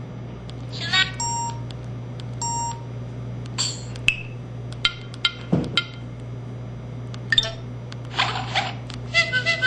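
Samsung SCH-E370 mobile phone's built-in sound effects played one after another through its small speaker: short electronic beeps and clicks, a falling chirp and a low swooping tone, over a steady low hum.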